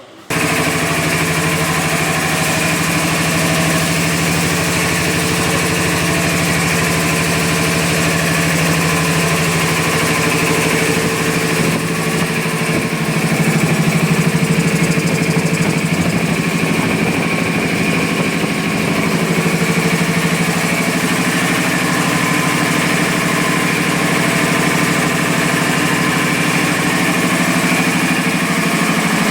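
Oil-free air compressor switching on abruptly and running steadily: a loud, even motor tone with a hiss over it.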